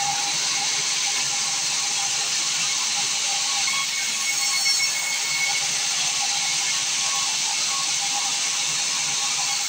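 Sawmill saw cutting timber: a steady hissing noise with a faint high whine.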